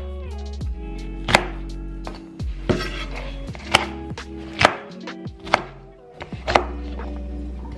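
Kitchen knife chopping an onion on a cutting board: about six sharp knocks, unevenly spaced about a second apart, over soft background music.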